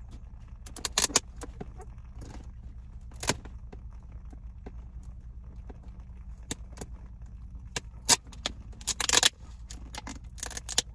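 Packing tape being picked at and peeled off a cardboard box, heard as scattered crackles and scrapes. The longest and loudest crackle comes about nine seconds in. A steady low hum runs underneath.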